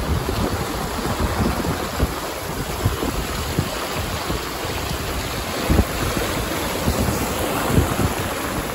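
Wind buffeting the microphone, with gusty low rumble, over the wash of water along a sailboat's hull while under way.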